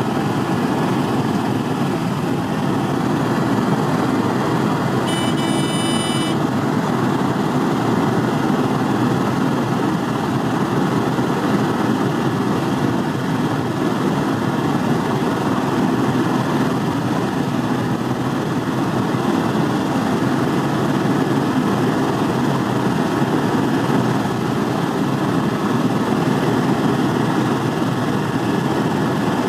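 Helicopter in flight: steady engine and rotor noise. A brief high tone sounds about five seconds in.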